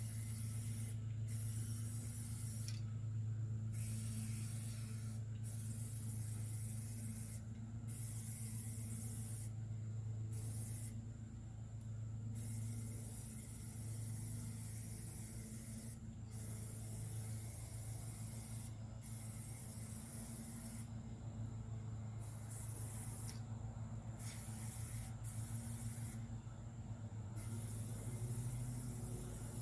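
Spray hissing in bursts of a few seconds with short breaks between them, over a steady low hum.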